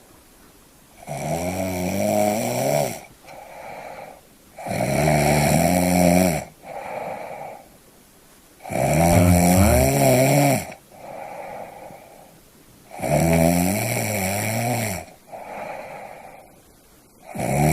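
Snoring in a steady rhythm: four loud, drawn-out snores about four seconds apart, with a softer, shorter sound between each, and a fifth snore starting near the end.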